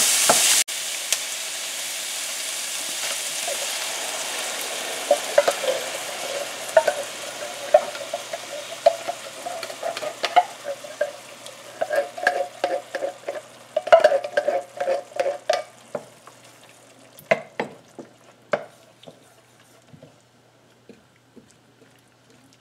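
Chopped vegetables sizzling in oil in a stainless steel skillet while a wooden spoon stirs them, with frequent knocks and scrapes of the spoon against the pan. The sizzle dies away over the second half as coconut milk is poured in, leaving mostly the taps and scrapes of stirring.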